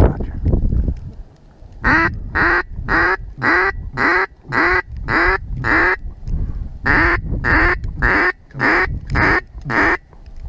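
Duck call blown by a hunter: two runs of evenly spaced, identical loud quacks, about two a second, with a short break in the middle, calling to diving ducks.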